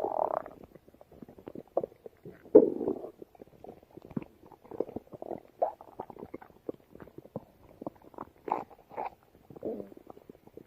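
A stomach growling: a string of irregular gurgles and squelches, with the loudest rumbles right at the start and about two and a half seconds in.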